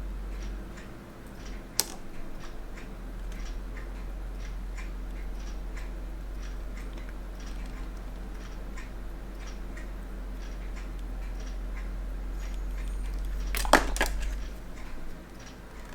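Faint, steady clock-like ticking over a low hum, with a sharp click about two seconds in and a louder clatter of small clicks near the end.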